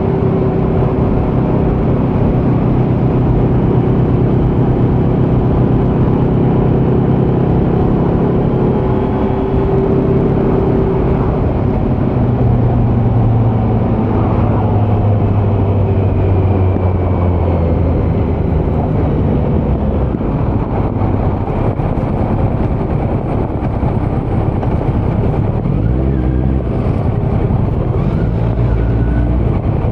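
Exhaust of a 2018 Kawasaki Z900's inline-four running through a Leo Vince muffler on stock headers with the dB killer removed, heard while riding. The engine note shifts up and down with throttle and speed.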